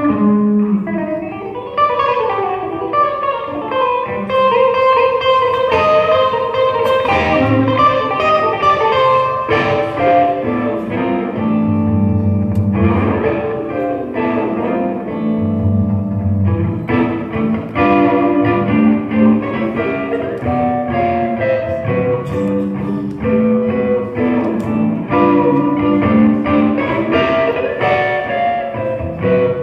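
Electric guitar played solo: runs of single notes and chords over repeated low bass notes.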